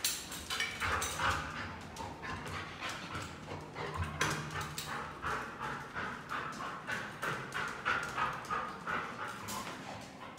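A dog whimpering over and over in short bursts, with footsteps and clicking on the stairs and tiled floor.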